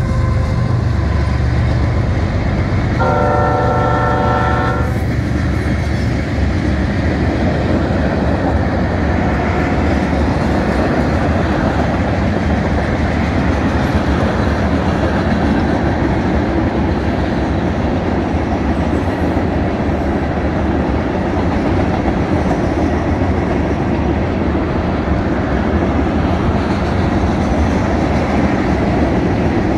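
Union Pacific freight train passing: the lead diesel locomotives' horn gives one blast of about two seconds for the grade crossing a few seconds in, over their engine drone. Then comes the steady rumble and clickety-clack of loaded tank cars rolling by.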